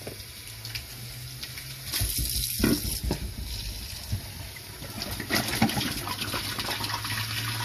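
Kitchen tap running into a stainless steel sink as brown plastic beer bottles are rinsed under it, water splashing into and off the bottles, with a few knocks as they are handled.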